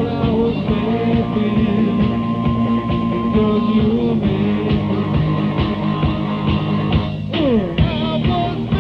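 Rock band playing on a rehearsal tape recording: drums keep a steady beat under bass and guitars. A high note is held for a few seconds, and a note slides downward about seven seconds in.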